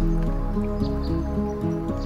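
Instrumental background music: held notes changing every fraction of a second over a steady low bass.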